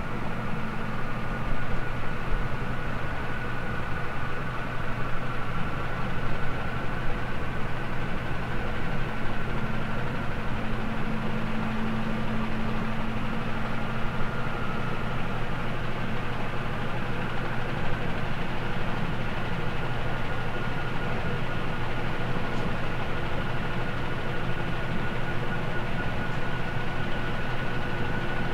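Golden Fan model 168 ceiling fan running: a steady motor hum with a faint high whine over a constant whoosh of moving air.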